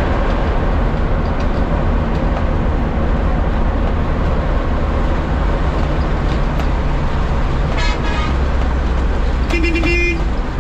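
A bus's engine and road noise, heard loud and steady from inside the driver's cab as it drives along a highway. A short, high horn toot comes about eight seconds in, and a longer vehicle horn sounds near the end.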